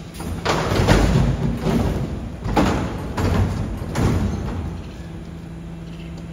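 Garbage truck's rear bin lifter tipping a plastic wheelie bin into the hopper: several heavy thuds and knocks as the bin bangs against the lifter and the waste drops in, over the steady low hum of the truck running.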